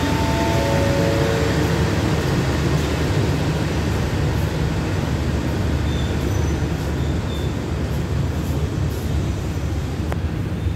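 Diesel-electric express train hauled by an Alsthom locomotive pulling out of the station: a steady low rumble of the engine and the coaches rolling along the track, easing slightly toward the end as the last coach moves away. A short run of stepped falling tones sounds in the first second or two.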